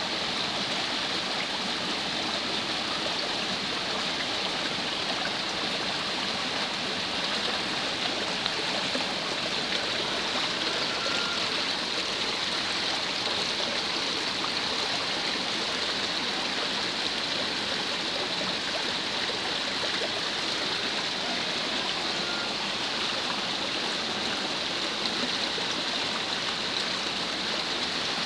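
Muddy rainwater runoff rushing down a dirt slope: a steady rush of flowing water that does not change.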